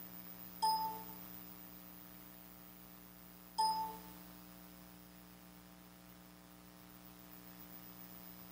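Two short electronic ding tones, about three seconds apart, each fading within a fraction of a second, over a steady low electrical hum.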